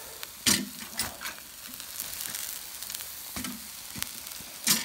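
Bacon, a pork chop and egg-in-toast sizzling steadily on the hotplate of a wood-burning camp stove. A few sharp knocks cut through it, the loudest about half a second in and near the end.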